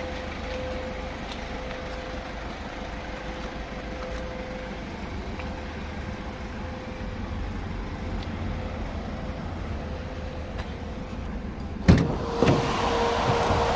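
Mercedes Sprinter van's diesel engine idling with a steady low rumble. About twelve seconds in, a door thumps shut, a second lighter knock follows half a second later, and a louder steady rushing noise takes over.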